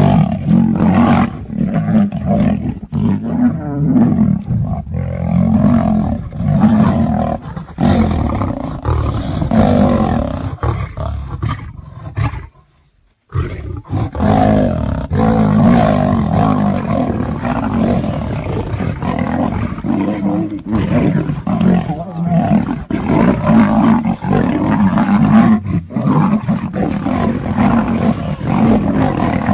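A lion and a tiger fighting, roaring over and over almost without pause. The sound drops out completely for under a second about twelve and a half seconds in.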